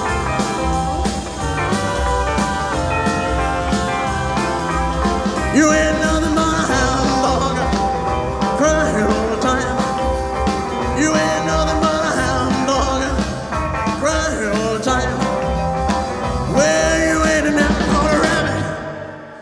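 Live rock-and-roll band playing an instrumental stretch with electric guitar, bass, drum kit and keyboard over a steady beat. Near the end the band stops and the sound dies away.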